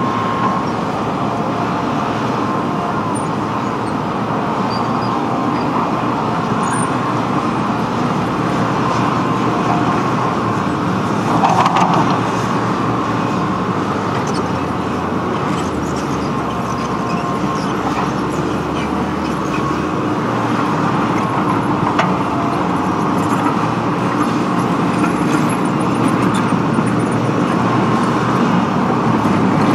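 Excavator's diesel engine running steadily, with a couple of brief knocks.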